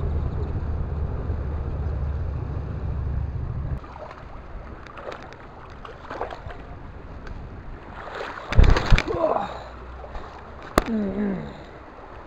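Handling and clambering noise on riverside rocks: scattered knocks and scrapes, loudest just past the middle, with a sharp click and a short falling voice sound near the end. A steady low rumble fills the first few seconds and cuts off suddenly.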